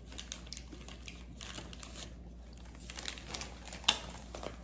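Plastic packaging of a stack of wraps crinkling as it is picked up and handled, a run of short rustles with one sharper crackle near the end.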